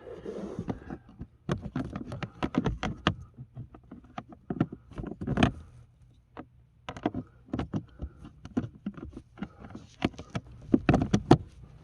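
Irregular hard plastic clicks and knocks as the cabin air filter cover and filter are pushed and worked by hand, trying to make the cover seat and close; the loudest flurry comes near the end.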